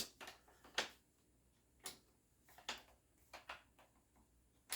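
Scattered light metallic clicks and taps, about six in all at irregular intervals, as a bayonet is worked at the muzzle of a Lee-Enfield No. 4 rifle in an attempt to fit it.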